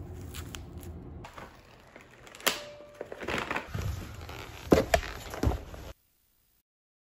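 Rustling of a glove being pulled on, then footsteps on a tile floor with a few sharp knocks. The sound cuts off suddenly about six seconds in.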